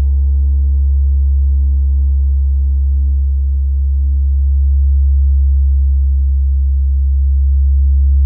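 Gong sounding a deep, steady low drone with faint higher overtones, swelling slightly near the end.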